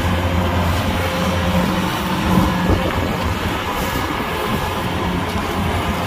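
Kubota DC-105X combine harvester running steadily: a low engine hum under a broad mechanical noise.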